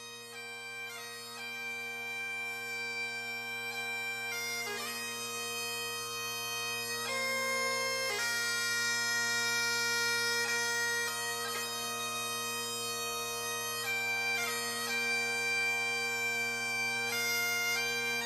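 Instrumental bagpipe music: a steady drone under a slow melody of held notes. It fades in over the first few seconds.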